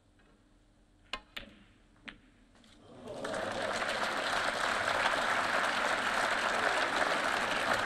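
Three sharp clicks of snooker balls, the cue ball struck and hitting other balls. Then audience applause swells from about three seconds in and keeps going.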